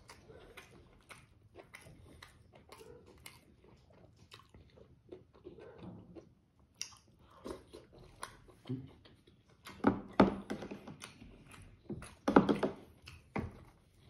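A person chewing and biting close to the microphone, eating boiled smoked pork and innards with rice. The chewing is wet and clicky throughout, with louder bites about ten and twelve seconds in.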